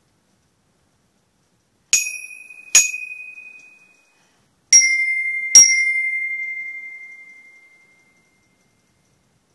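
Glockenspiel bars struck with a mallet four times: two notes at one pitch, then two at a slightly lower pitch, each ringing on and fading over a couple of seconds.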